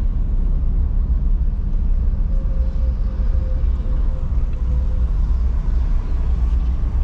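Car driving along the road: a steady low rumble of engine and road noise.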